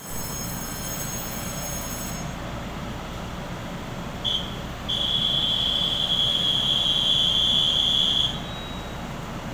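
A steady high-pitched warning buzzer sounds with a short beep about four seconds in, then holds for about three and a half seconds and cuts off. Underneath is the steady hum of an EMU500 electric multiple unit standing at an underground platform, with faint high whining tones in the first two seconds.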